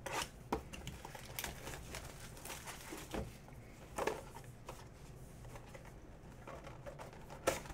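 Hands opening a sealed trading-card hobby box: faint rustling and scraping of cardboard and wrapping, with a few short clicks and taps, the sharpest one near the end.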